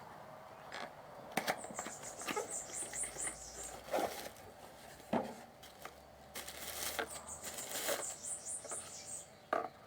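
Packaging of a small PC speaker being opened and handled: scattered clicks and taps, with two short stretches of rapid, high scratchy rasping.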